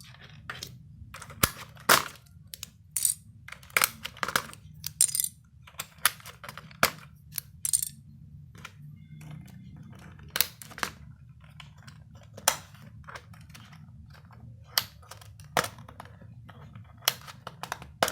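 Irregular sharp clicks and small clatters of hard plastic keyboard parts being handled and set down as a Logitech PS/2 keyboard is taken apart, over a faint low hum.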